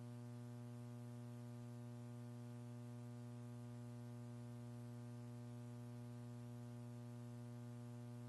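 Steady electrical hum with a buzzy stack of overtones, unchanging throughout, over faint hiss.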